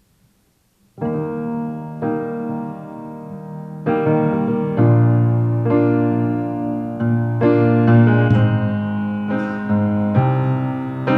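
Grand piano playing a slow introduction of chords, entering about a second in and growing louder around four seconds in.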